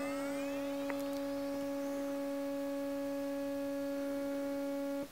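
Sine-wave test tone through a DIY Eurorack bitcrusher/sample rate reducer module: a steady low tone with a few evenly spaced overtones. Faint high overtones glide upward during the first second, and a sharp click comes at the very end.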